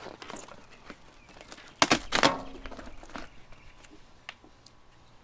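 Vinyl wrap film being handled and pressed onto a boat hull by hand: scattered light taps and rustles, with one loud crinkling burst about two seconds in.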